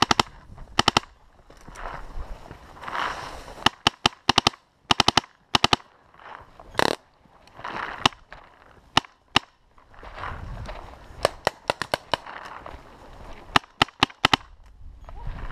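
Paintball markers firing: quick volleys of sharp pops, several shots at a time, repeated again and again.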